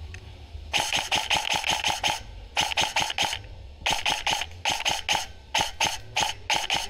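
Kings Arms M4 airsoft electric gun with a Gate Aster trigger unit firing quick strings of shots. Each string holds several sharp mechanical cracks, with short pauses between strings.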